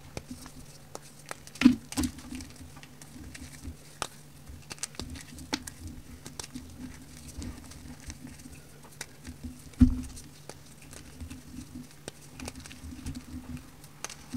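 Pressed powder bar crunching and crumbling between fingers over loose powder: many small crisp crackles and ticks, with two louder thuds, about two seconds in and near ten seconds, over a faint low hum.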